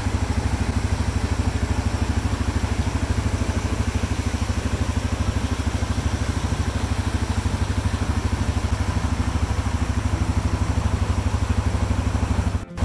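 ATV engine idling steadily with an even, fast low pulse, over the rush of a small mountain creek cascading over rocks. It cuts off suddenly just before the end.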